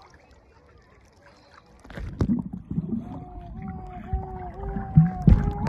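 Muffled underwater sound as a phone is dunked in seawater while snorkelling: water rumbling and knocking against the microphone starting about two seconds in, then a steady, slightly wavering hum for about two and a half seconds.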